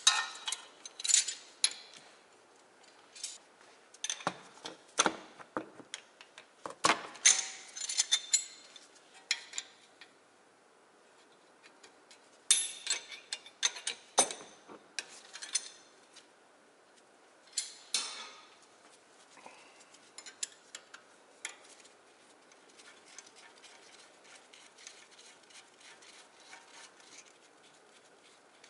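Hand tools clinking against a brake caliper and a ratcheting wrench clicking as the caliper bolts are loosened and backed out. Sharp metallic clinks come in clusters through the first half, then lighter, fainter ticking.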